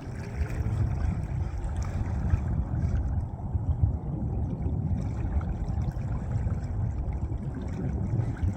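Wind buffeting the microphone, a low, gusty rumble.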